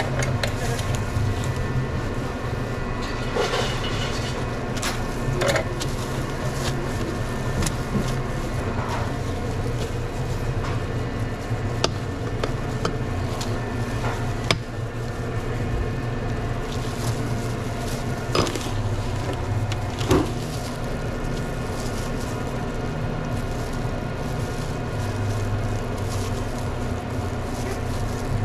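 Sandwich-shop prep work over a steady low equipment hum: scattered light knocks and clicks of utensils and containers at the sandwich counter.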